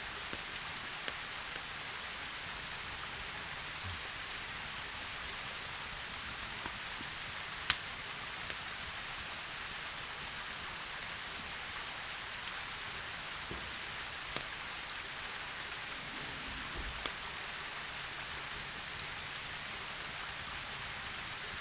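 Wood fire burning in a small fire stand, giving a few sharp crackles, the loudest about eight seconds in and another about fourteen seconds in, over a steady hiss.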